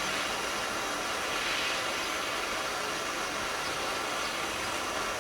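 Blowtorch flame burning with a steady hiss as it heats a bicycle's steerer tube, expanding the metal to break the rust bond on a seized stem.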